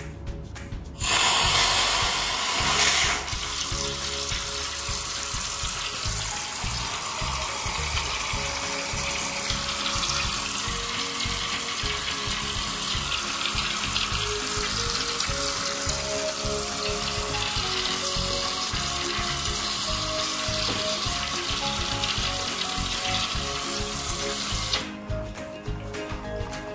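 High-pressure washer jet spraying onto a tiled floor and washing water into a floor drain: a steady hiss that starts about a second in, louder for its first two seconds, and cuts off suddenly near the end.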